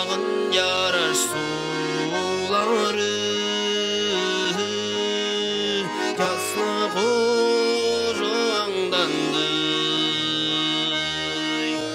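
Background music: a slow melody over a held low note, with no beat.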